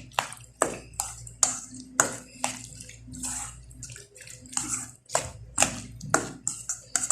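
A spoon stirring chopped fruit and yogurt together in a bowl, with repeated sharp clicks and scrapes about twice a second.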